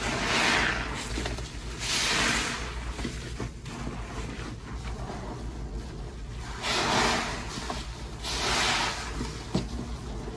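Sponges loaded with fluffy Gain and Dawn dish-soap paste squeezed in a basin of foam: four wet squishes of about a second each, two near the start and two near the end, with softer squishing of foam between.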